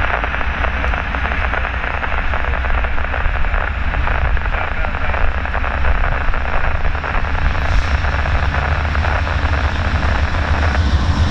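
Norfolk Southern freight train's diesel locomotives running, a steady loud rumble with engine noise.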